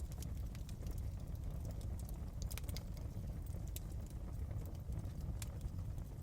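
Wood fire crackling in a fireplace: scattered sharp pops and snaps at uneven intervals over a steady low rumble.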